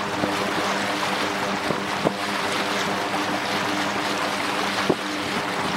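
Single-engine floatplane's engine and propeller droning steadily at takeoff power as it runs across the water, with wind noise over the top and a few light knocks.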